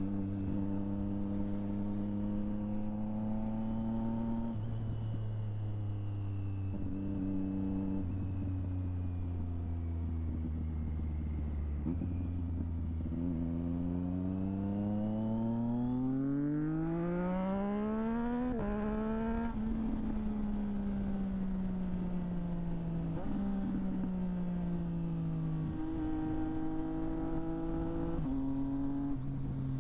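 Triumph Street Triple 765 RS inline-three engine through a Delkevic aftermarket exhaust, riding on the road: revs step up and down with gear changes, then one long rising pull peaks about two-thirds of the way in and drops sharply at a gear change before the engine eases off and slows.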